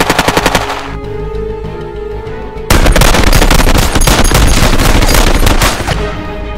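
Automatic gunfire sound effects over background music: a short burst of rapid shots in the first second, then a longer, louder stretch of continuous fire from about three seconds in until about six seconds.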